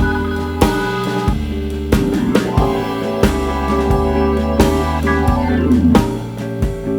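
Background music: an upbeat track with drum kit, bass and guitar, its beat steady at roughly one and a half hits a second.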